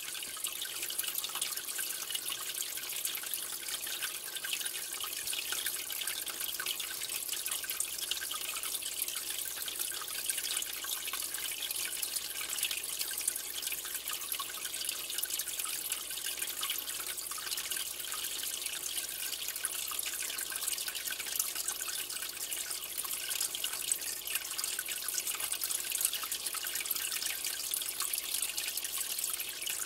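Steady aquarium water noise: water trickling and splashing at the surface of a fish tank, with many small drip-like pops.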